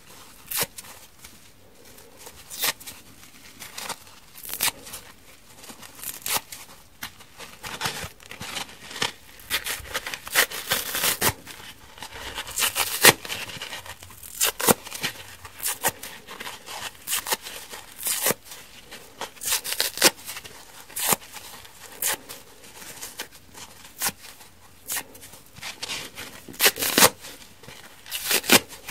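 Soft foam sides of kitchen sponges torn apart by hand into small pieces: a steady run of short, irregular crackly rips, denser in the middle stretch.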